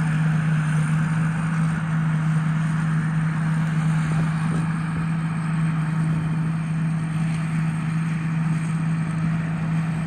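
Rice combine harvester engine running at a steady pitch: one constant low hum under an even whir of machinery, with no change in speed.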